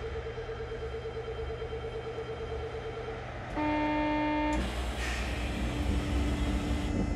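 Door warning signals on a stopped Osaka Metro New Tram 200 series train: a rapidly pulsing electronic tone stops about three seconds in, and a steady buzzer sounds for about a second. A louder hiss with a low hum follows, as the doors begin to move.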